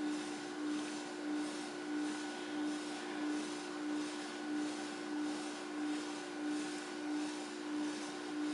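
Steady machine hum, a low tone over a light hiss, that swells and fades evenly about one and a half times a second.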